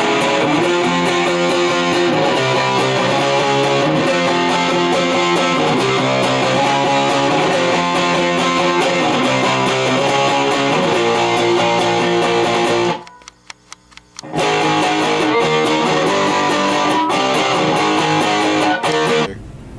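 Rock music with distorted electric guitar chords. It breaks off for about a second and a half two-thirds of the way through, comes back, and stops just before the end.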